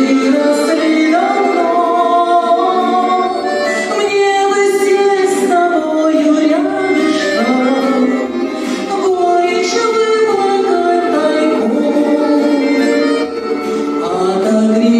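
A song sung with instrumental accompaniment, the melody carried by high voices.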